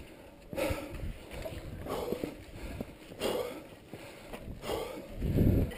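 Climbers breathing heavily in breathy puffs about every second and a bit as they haul themselves up the steep cables, over a low rumble of wind on the microphone.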